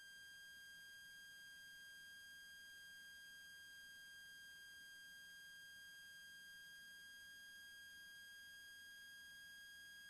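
Faint, steady high-pitched electrical whine with a ladder of overtones, holding one pitch throughout; no engine sound comes through.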